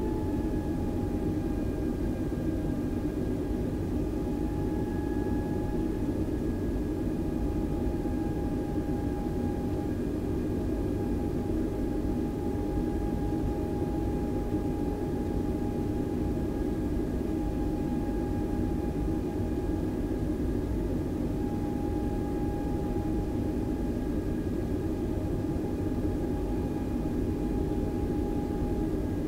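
Airbus A320 cabin noise: a steady engine and airflow rumble with a steady jet engine whine held at one pitch.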